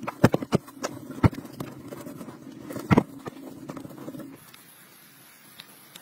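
Soil being dug and scooped by hand out of a narrow hole lined with a woven bamboo basket: a quick run of knocks and scrapes of earth and clods, which thins out and goes quiet about four seconds in.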